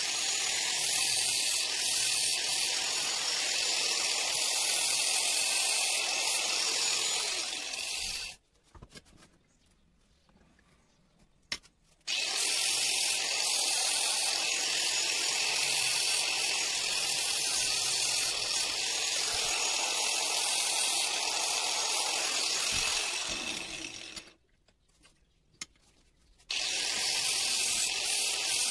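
Angle grinder with an abrasive disc grinding a steel knife blank cut from an old saw blade, a steady loud hiss of disc on metal. It stops twice for a few seconds, with a click in each pause, and then starts again.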